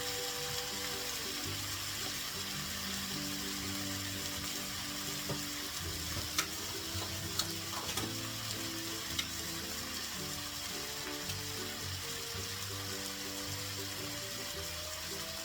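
Food sizzling and frying in a pan, a steady crackling hiss. A few sharp taps of a utensil against the pan come between about five and nine seconds in.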